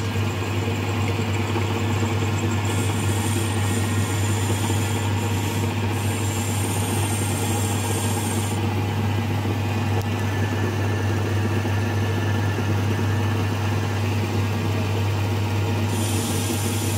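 Metal lathe running steadily with a strong low motor hum while its tool cuts the outside diameter of a steel bar, throwing off swarf. A higher hiss from the cut comes in from about three to eight seconds in and again near the end.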